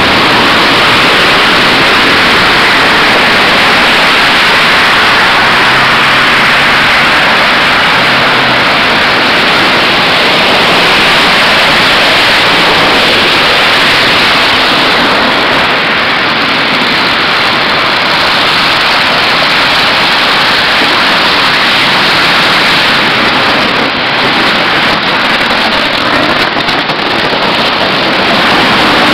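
Freezing rain falling in an ice storm, a loud, steady hiss that does not let up.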